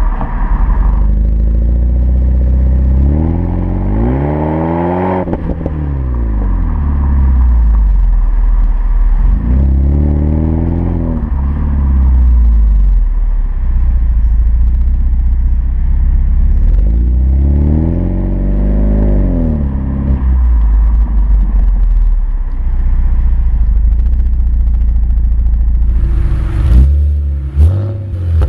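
BMW 320i E90 four-cylinder engine heard at the twin exhaust tips, idling and blipped up and down in slow rev sweeps, three full ones plus one dying away at the start. Near the end this gives way to a BMW 330Ci E46 inline-six on headers, straight pipes and a Bastuck exhaust, revved in short, sharp blips.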